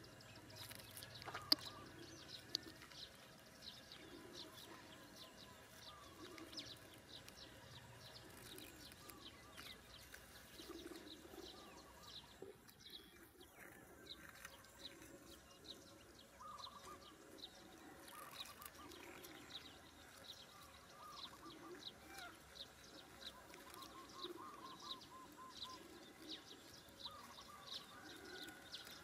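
Near silence: faint outdoor ambience with scattered short chirps and soft ticks.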